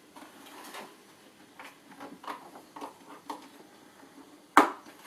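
Small clicks and light knocks of toy shop parts being handled and fitted together, with one sharp, louder knock near the end.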